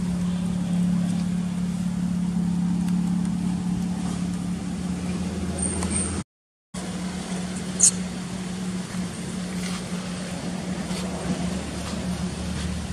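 A steady low hum, with the sound cutting out for a moment about six seconds in and a single sharp click about two seconds later.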